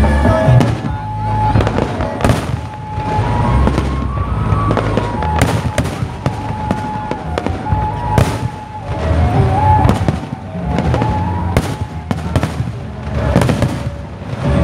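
Fireworks display: a string of bangs and crackling bursts at uneven intervals, with music playing underneath.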